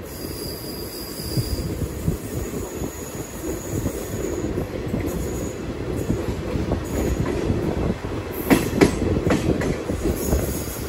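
Old ICF passenger coach running through a station without stopping, heard from on board: a steady rumble of wheels on rail with a faint high squeal in the first few seconds. A cluster of sharp clacks comes about eight and a half seconds in.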